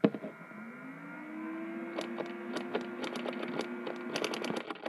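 Homemade solenoid engine running, built from an old printer's solenoid, paper-clip linkage and a small fan: a whir that rises in pitch over the first second or so as it spins up, then holds steady. From about two seconds in there is a quick run of clicks from the solenoid and its contact switch. The sound cuts off abruptly near the end.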